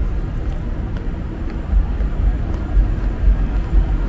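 Outdoor city street ambience: a strong, uneven low rumble, with a few faint scattered clicks.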